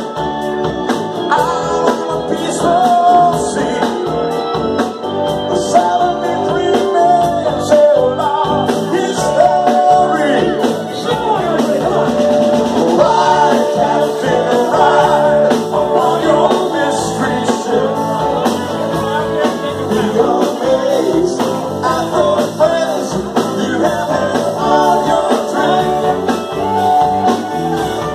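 A live band playing loud, amplified: a man singing into a microphone over electric guitars, a drum kit and a keyboard.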